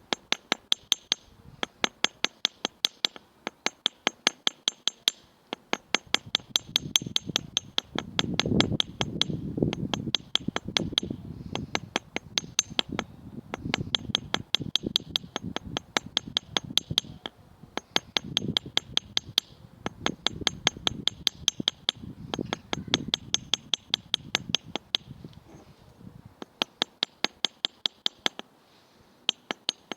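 Light, steady hammer taps on a small steel anvil, about three a second, each with a bright metallic ring, as twisted triple-strand thin copper wire is textured. A low background rumble comes in a few seconds in and fades out near the end.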